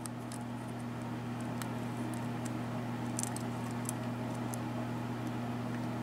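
Faint, scattered metallic clicks and scratches of a hook pick working the pin stack inside a 4-pin Commando padlock under light tension, single-pin picking the pins toward the shear line. A steady low hum runs underneath.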